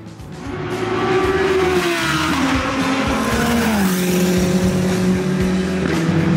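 Racing car engine running at high revs, growing louder over the first second, its pitch then dropping in several steps.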